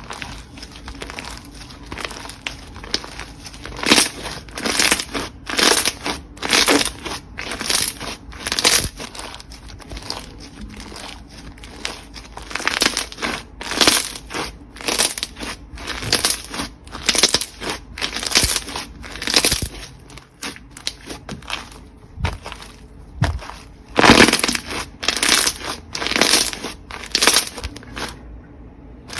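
Slime being squeezed and pressed by hand, giving a run of crackling, crunchy squishes about one or two a second.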